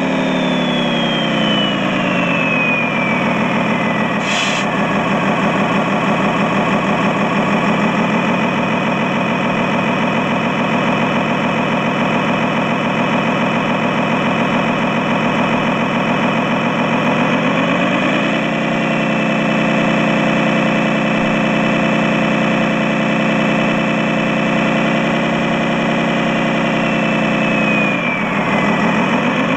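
RC model truck's engine sound running steadily. It drops in pitch over the first few seconds, revs up about eighteen seconds in, holds, then drops again near the end.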